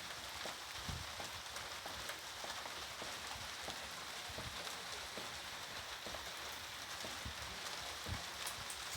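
Rain falling steadily, a constant hiss with scattered drips and a few soft low thuds of drops landing.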